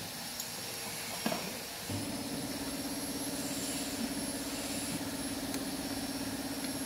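A machine hums steadily at a low, even pitch with a slight pulse, starting about two seconds in. A single light click comes just before it.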